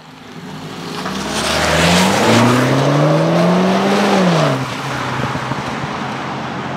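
2013 MINI Cooper S Paceman's turbocharged 1.6-litre four-cylinder pulling hard in third gear as the car passes. Its note rises steadily for about three seconds, then drops away quickly as it goes by.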